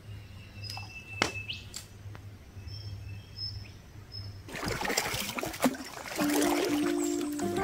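Short bird chirps over a low steady hum. About four and a half seconds in, a rushing, splashing noise comes in, and background music with held notes begins near the end.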